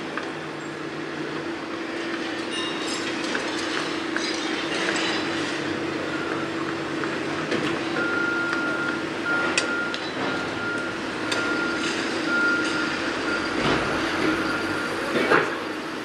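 Construction-site machinery running with a steady hum and occasional metal clanks. About halfway in, a string of short high beeps at one pitch starts up, typical of a site vehicle's reversing alarm, and continues until near the end.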